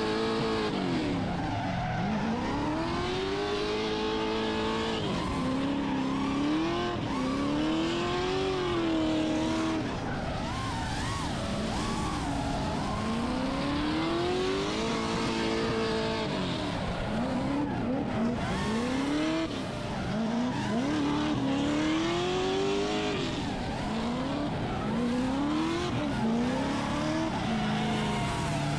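Drift car's engine revving up and dropping back again and again, with some stretches held at a steady high pitch, over the screech and hiss of tyres sliding sideways.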